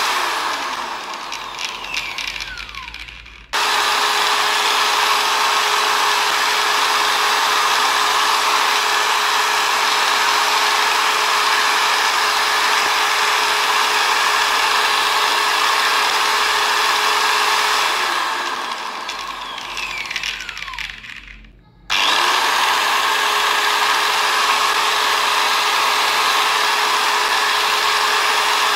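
Montez 700-watt electric drill running at full speed with a steady whine. Twice the trigger is let go and the motor coasts down, its pitch falling over about three seconds, before it is switched straight back on to full speed.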